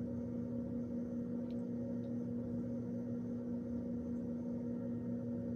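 A steady, even hum at a constant low pitch.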